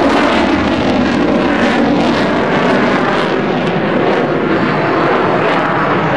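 Fighter jet flying past overhead: loud, steady jet-engine noise, a dense rush with a ragged crackle in its upper part.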